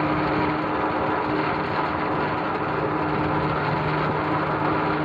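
Babbacombe Cliff Railway funicular running as a car climbs the incline: a steady mechanical hum with an even rumble from the cable haulage, unchanging in level.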